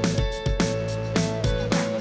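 Upbeat indie background music with a steady beat, about two beats a second.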